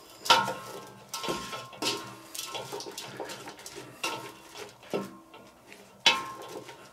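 Wooden spoon stirring chopped vegetables in a stainless steel pot, knocking and scraping against the pot's wall, the metal ringing briefly after each knock. About seven knocks, the loudest near the end.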